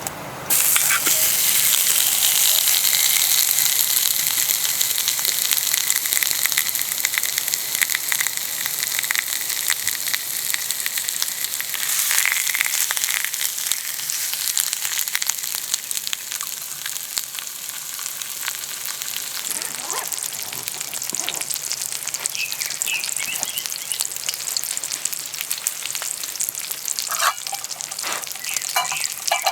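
Food sizzling on a hot camping griddle, starting suddenly about half a second in and easing off slowly, with a few light knocks near the end.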